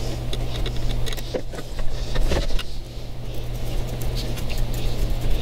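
Small metal clicks and scraping as pliers fit a C-clip onto a control cable's end rod at a binnacle control box, a few sharp clicks about one and two seconds in, over a steady low hum.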